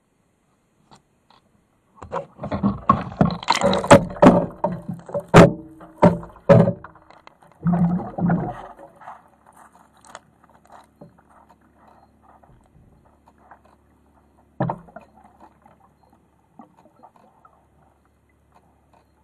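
A remotely operated vehicle being handled and dropped through a hole in sea ice: a few seconds of knocks, sharp clicks and splashing as it goes into the water. Then a faint steady hum, with one more knock later on.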